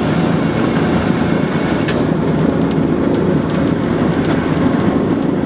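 Douglas DC-3's radial piston engine running steadily on the ground, its propeller turning, heard from inside the cabin as a loud, even drone.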